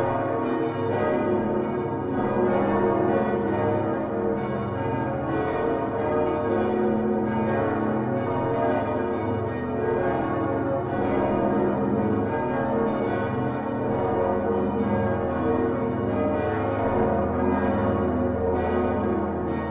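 Many large bronze church bells swinging and ringing together in a full peal: the Utrecht Dom tower's Geryt van Wou bells of 1505 with their 1982 additions, hung on straight stocks. Their strikes overlap densely over a deep, sustained hum.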